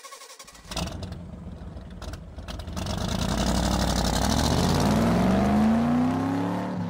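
A vehicle engine starting with a clatter about half a second in, then accelerating, its pitch rising steadily for a few seconds before easing off near the end.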